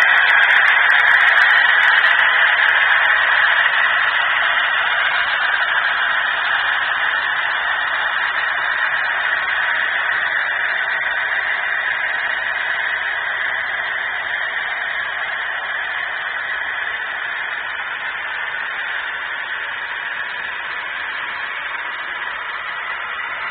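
HO scale model passenger train rolling past on the layout track. It makes a steady, noisy rush that slowly fades as the locomotives pull away.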